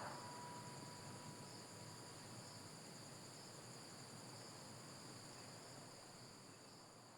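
Faint, steady chorus of crickets and other insects, several high-pitched bands held without a break. The last ringing tone of the loudspeaker chime dies away in the first second.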